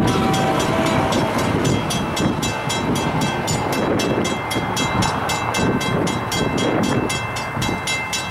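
Railroad crossing bell ringing rapidly, about four to five strikes a second, over a steady low rumble.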